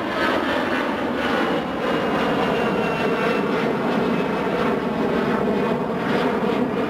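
Jet airliner's engines running loud and steady.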